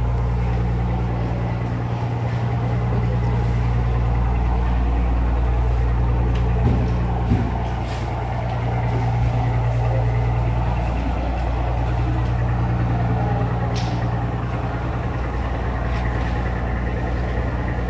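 A large engine running steadily at idle, a continuous low drone, with two short knocks about seven seconds in.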